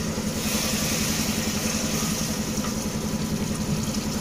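A cup of water poured into a pressure cooker of hot fried mutton masala: a hiss of water hitting the pot that starts about half a second in and fades after a couple of seconds. Under it runs a steady low hum with a fast even pulse.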